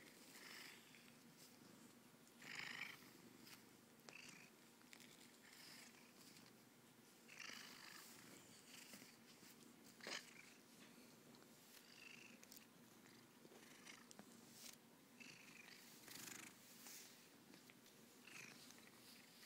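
Domestic cat purring steadily and faintly, with short swishes every couple of seconds from a brush stroking through its fur, and one sharp click about ten seconds in.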